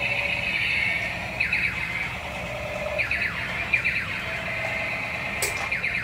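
Battery-powered light-up toy tank running over a tiled floor, giving a steady high electronic whine with falling-pitch zaps twice, from its built-in sound effects. A sharp click near the end.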